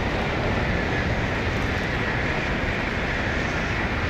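Tokaido Shinkansen bullet train passing at speed on a viaduct: a steady rushing noise with a faint high whine.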